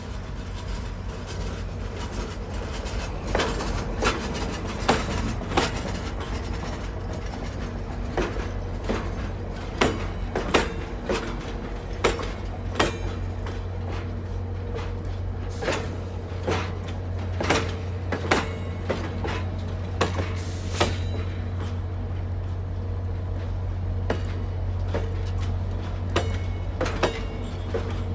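Slow-moving passenger train of stainless-steel cars: irregular clicks and clunks from wheels and couplers over the rails, over a steady low diesel locomotive rumble.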